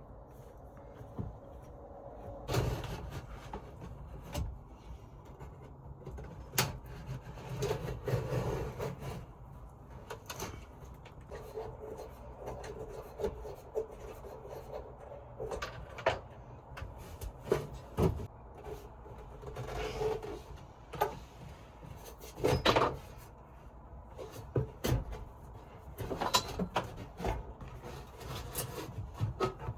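Irregular knocks, clacks and scraping of wooden panels and fittings being handled and pulled loose while a camper's interior is torn out.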